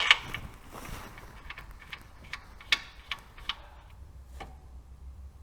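Scattered light metallic clicks and taps of hand tools on the engine, about a dozen at uneven spacing, the sharpest one right at the start, over a low steady hum: the crankshaft locking tool being screwed into the block of a Skoda 1.2 TSI and the crankshaft turned against it.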